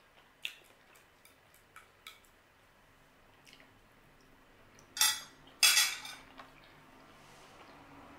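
Metal fork lightly clicking against a ceramic plate a few times while picking up potato wedges, then two louder clatters about five seconds in, as of the fork being put down on the plate.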